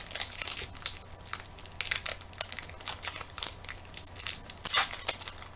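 Crinkling and crackling of trading card pack wrappers and packaging being handled and torn open, with one louder crackle near the end.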